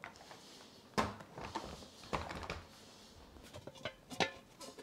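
Knocks and clatter of household things being handled in a closet: a thump about a second in, lighter clacks after it, then a few short metallic clinks near the end as a large stockpot and its lid are moved.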